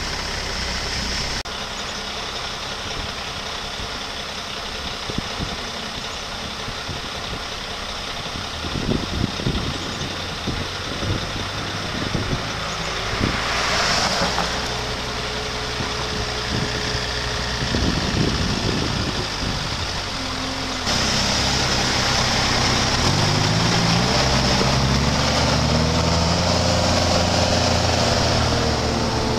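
Engine of a truck-mounted forklift running. A car passes by about halfway through. In the last third the engine is louder and its pitch climbs in steps as it pulls away.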